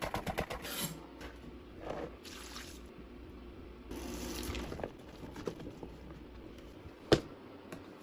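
Handling noises: quick clicks and rustling, a brief scraping or squishing noise, then one sharp knock about seven seconds in.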